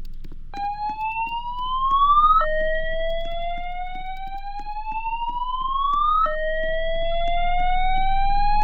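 Fire alarm voice-evacuation system sounding its alert tone: a slow rising whoop that climbs in pitch for a few seconds, drops back, and climbs again, three sweeps in all, with faint regular ticking underneath.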